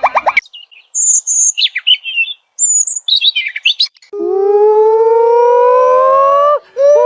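Birds chirping in short, high calls for a few seconds. Then a different, lower call starts and rises slowly in pitch for about two and a half seconds, breaks off, and begins again.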